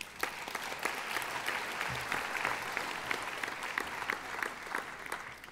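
Audience applauding, a steady round of clapping that stops abruptly near the end.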